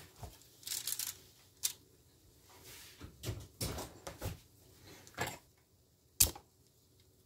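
Handling noises of a metal baking sheet being carried: scattered short rustles and clicks, with one sharp knock a little after six seconds in.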